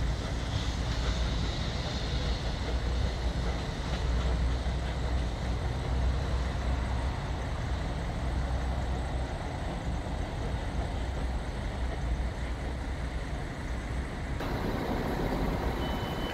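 Pt47 steam locomotive pulling a train away into the distance, heard as a steady low rumble with wind on the microphone. About fourteen seconds in, the sound cuts to a different background with a faint high tone.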